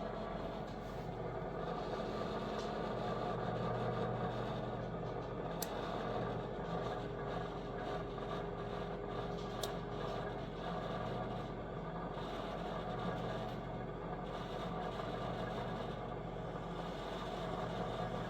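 Fabuletta air fryer toaster oven's convection fan running with a steady hum, a few faint ticks over it. The whole unit vibrates, which the owner takes for an out-of-balance fan.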